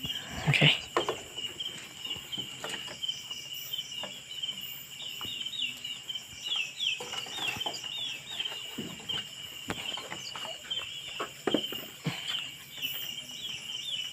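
Chickens perched on a roost clucking now and then, over a steady chorus of crickets.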